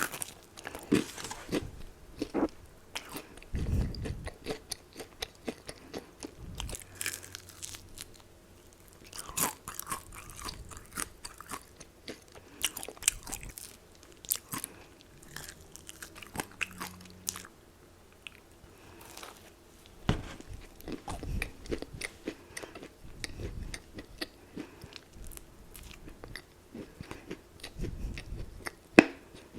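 Close-miked eating of crispy fried chicken: crackling crunches of bites and chewing, coming in clusters with quieter stretches of chewing between them.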